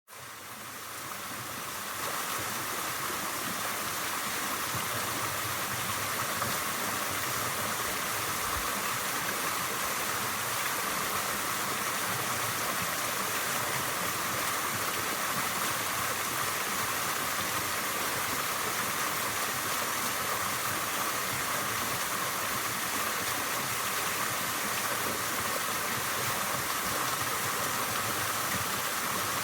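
Waterfall: a steady rush of falling water, fading in over the first two seconds.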